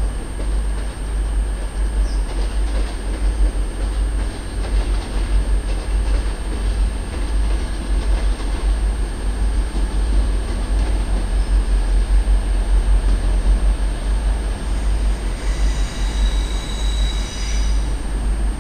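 A train running through the station with a steady low rumble. Near the end a high squeal of wheels on the rails comes in briefly.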